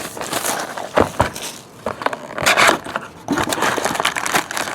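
Plastic wrapping crinkling and tearing, with a few sharp clicks, as a sealed box of trading-card packs is opened.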